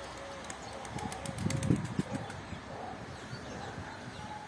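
Domestic pigeons cooing: a run of short, arched notes repeating every few tenths of a second. About a second and a half in comes a brief, louder burst of wing flapping.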